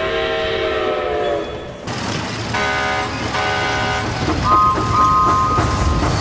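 Train horns and whistles sounding over the low rumble of trains: a long chord blast, then two shorter blasts, then a higher two-note whistle held near the end.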